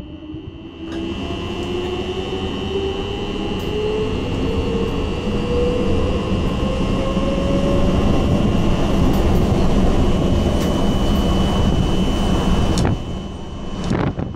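Electric train heard from its driver's cab while accelerating: a whine from the traction drive rising steadily in pitch over the first several seconds, over a steady rumble of the running gear and a steady high tone. Near the end the sound drops off suddenly, followed by a few sharp clicks of wheels over rail joints.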